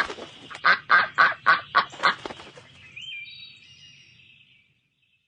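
A duck quacking: a quick run of about seven quacks, followed by fainter high calls that fade out about four and a half seconds in.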